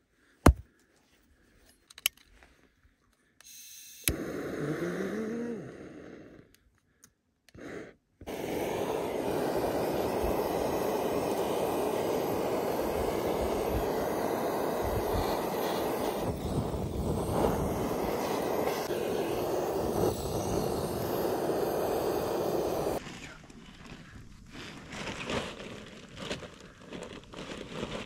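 A couple of sharp knocks, then a butane torch on a gas canister hissing steadily for about fifteen seconds as its flame is held to the kindling; the hiss cuts off suddenly.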